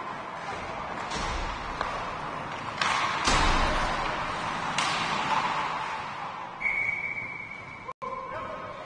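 Ice hockey play echoing in an ice rink: several sharp cracks of puck and sticks against the boards, the loudest about three seconds in. A brief high steady tone sounds near the end.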